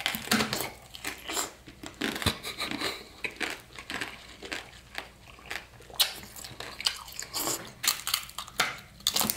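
Biting into and chewing orange segments coated in a thick, hard tanghulu sugar shell. The candy cracks and crunches in sharp, irregular snaps, in denser bursts about six seconds in and again near the end.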